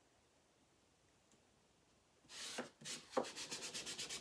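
Hand rubbing an adhesive silkscreen transfer flat onto a wooden sign board, starting about two seconds in as quick, even back-and-forth strokes, to press the transfer down.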